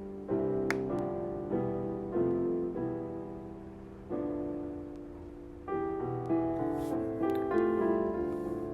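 Soft instrumental piano music, slow chords struck about every second or so and left to ring out.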